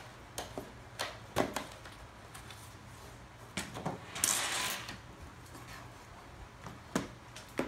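A cardboard kit box and its chocolate tray being handled on a tabletop: scattered light knocks and taps, and a brief papery scrape about four seconds in as the tray comes out of the box.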